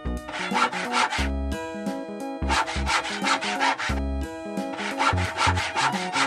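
A hand saw cutting with rapid back-and-forth strokes, in three bursts of about a second each. Background music plays underneath.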